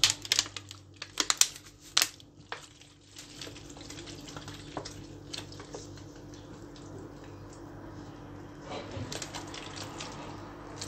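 Sugar syrup spattering and dripping from a bottle onto a chocolate sponge cake layer, a soft steady hiss that gets a little louder near the end. There are a few sharp clicks in the first two seconds.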